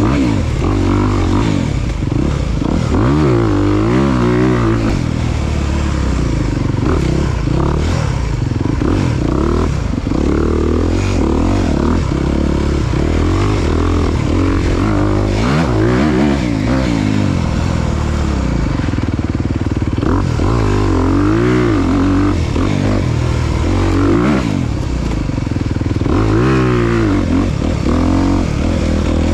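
Dirt bike engine being ridden hard, its pitch rising and dropping again and again as the throttle is opened and closed.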